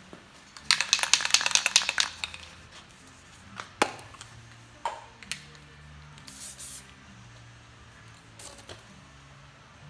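An aerosol spray can being shaken, rattling rapidly for about a second and a half, then a few knocks as it is handled and a short hiss of spray.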